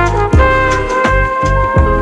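Instrumental background music: held notes over a steady beat.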